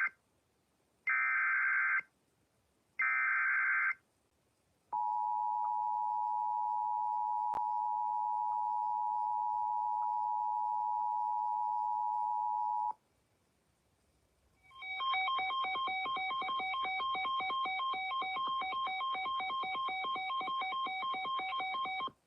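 Emergency Alert System tones: three short warbling bursts of SAME digital header data, then the steady two-tone EAS attention signal held for about eight seconds. After a brief pause a different electronic alert tone beeps in rapid pulses until the voice message begins.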